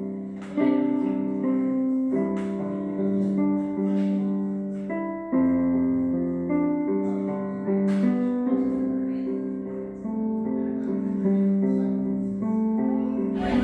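Slow keyboard music: held chords struck every second or two and left to fade. A short burst of noise cuts in at the very end.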